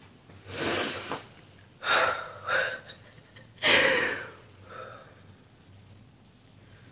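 A woman's breathing and sniffling as she calms herself after crying: four breathy sniffs and breaths in the first four seconds, the first the loudest.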